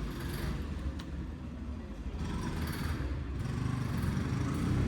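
Motor vehicle engine running steadily with a rapid low pulsing, amid general traffic noise, getting a little louder toward the end.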